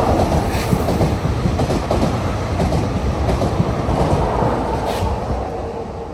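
A passing train running through the station, its wheels clacking over the rail joints and points above a heavy rumble. The sound starts to fade away near the end.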